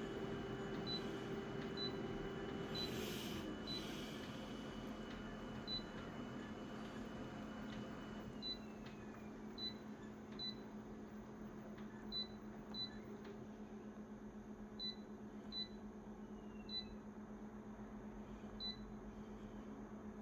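Konica Minolta photocopier humming, its motor tones dropping in pitch about three seconds in and again about eight seconds in. The control panel gives about fifteen short high beeps at irregular intervals as its buttons are pressed.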